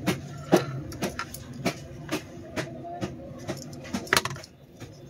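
Handling noise from a plastic clip charger and its red leads with metal alligator clips: irregular clicks and taps as it is turned over and the cables are picked up, the loudest about four seconds in, over a steady low hum.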